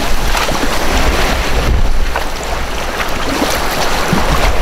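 Rushing, churning river water as a kayak runs a ledge drop and small rapid, with paddle splashes and wind buffeting the microphone.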